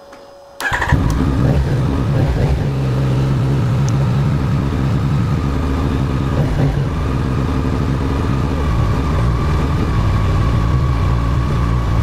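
A 2023 Yamaha XSR900's 890 cc inline three-cylinder engine is started: a brief whir from the starter, then the engine catches about half a second in and idles steadily.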